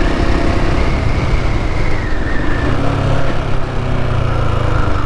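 KTM 690 Enduro's single-cylinder engine running steadily at road speed, with wind noise rushing over the microphone.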